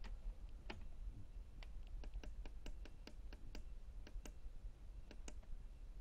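Sharp clicks of the Miele W5964 washing machine's control-panel keys being pressed again and again to scroll through the programme menu. A quick irregular run of clicks comes in the middle, then a short pause and a couple more near the end.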